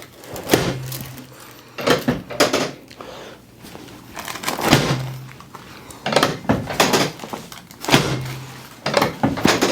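Chiropractic drop table sections dropping with sharp thunks as shoulder adjustments are thrust in, about nine knocks at uneven intervals, some with a short low ring after them.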